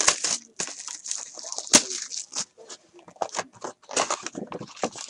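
Hands opening a cardboard trading-card hobby box and lifting out a stack of foil-wrapped card packs: irregular crinkling and rustling of the wrappers and cardboard, with one sharp snap a little under two seconds in.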